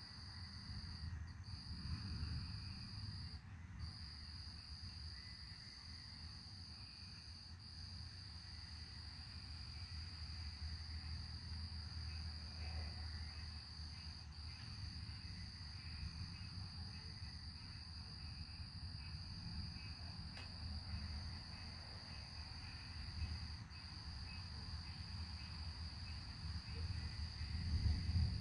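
A steady high chorus of night insects, crickets and the like, runs over a low rumble of distant thunder. The rumble swells and fades and is loudest near the end.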